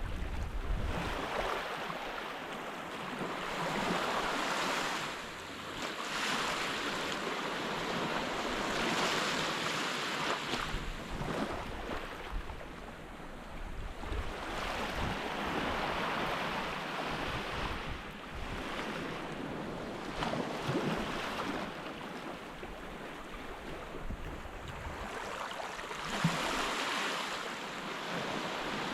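Sea surf washing onto a beach, swelling and easing every few seconds, with some wind rumbling on the microphone.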